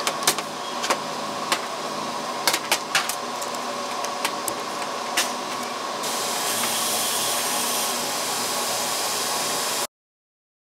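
Small metal parts clicking and tapping as a steel shoulder bolt is handled and threaded into a billet aluminium rocker arm, over a steady background hiss. The sound cuts off suddenly to silence near the end.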